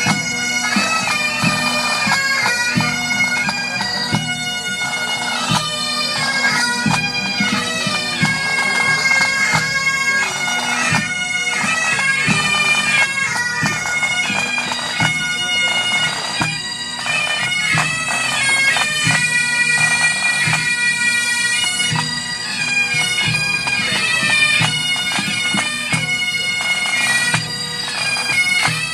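Pipe band playing: Great Highland bagpipes carry a melody over a steady drone, with snare and bass drums keeping time.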